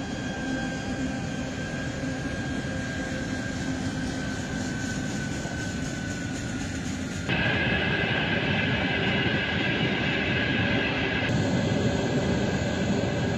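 Freight train rolling across a bridge: a steady rumble with a faint high whine that slowly drops in pitch. About seven seconds in it cuts abruptly to a louder, closer sound of the train with a brighter whine.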